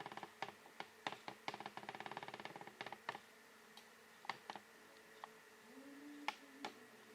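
Faint clicking: fast runs of even ticks, like a rattle, at the start and again around two seconds in, with single sharp clicks scattered through the rest over a faint steady hum.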